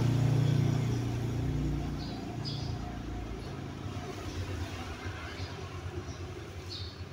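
A motorcycle engine passing on the street and fading away over the first two to three seconds, leaving a faint background with a few short high chirps.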